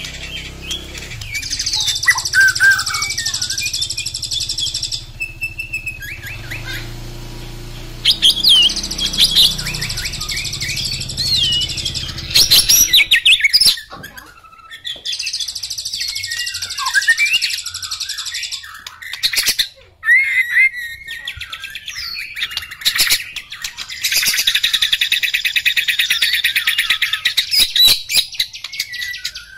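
White-rumped shama singing: a long, varied song of whistles and fast rattling trills, in loud stretches broken by brief pauses.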